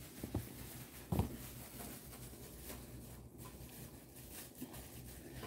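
Quiet room tone with a low steady hum and two faint soft knocks, about a quarter-second and just over a second in.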